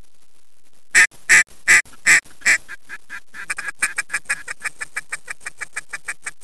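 Duck quacking: five loud, drawn-out quacks in quick succession, then a fast, even run of short quacks at about five a second.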